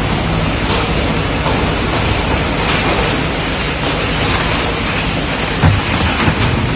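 Industrial scrap shredder running loud, a steady low hum under a dense rushing din, with several sharp cracks and crashes in the last second or so.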